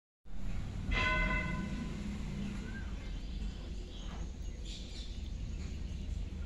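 Outdoor background noise with a steady low rumble. About a second in there is a short pitched tone with several overtones, and later a couple of faint short chirps.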